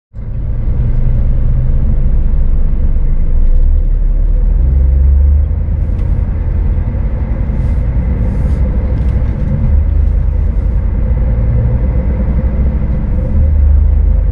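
Scania S500 truck driving at highway speed, heard from the cab: a steady low rumble of engine and road noise, with a faint steady tone above it.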